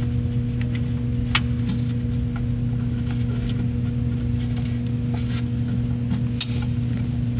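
Small sharp clicks and taps of the headlight bulb's plastic clips being worked by hand, scattered a few seconds apart, over a steady low hum.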